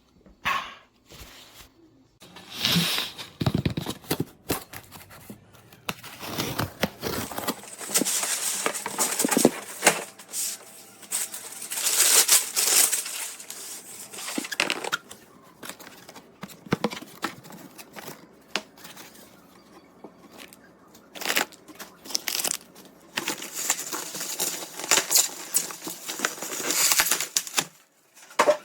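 Irregular crinkling, rustling and tearing of packaging being handled, in bursts with short pauses between them.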